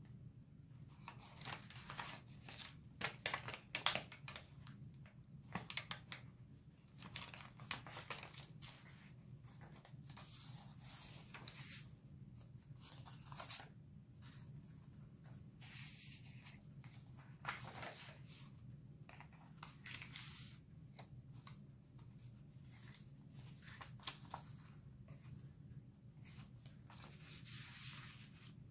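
Paper and cardstock rustling and sliding in stop-start bursts as tags and cards are pulled out of the envelopes and pockets of a paper envelope journal and handled, with a few sharper taps and clicks a few seconds in.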